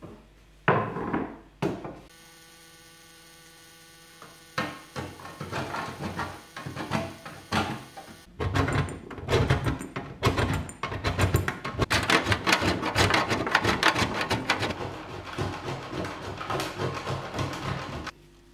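A block of beeswax being grated on a stainless-steel box grater onto a wooden board: rapid repeated scraping strokes that start about four seconds in, come thicker and faster from about eight seconds, and stop abruptly near the end. Before them, a few knocks as the board and grater are set down on the table, over a steady low hum.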